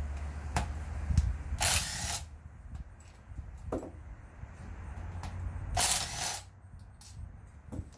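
Cordless drill spinning bolts out of a GM 8.25 front differential case, running in two short bursts about two seconds in and again near six seconds, with small metal clicks between.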